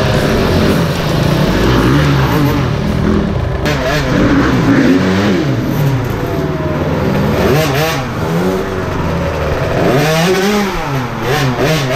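Dirt bike engines revving up and down while riding, the pitch rising and falling about four times.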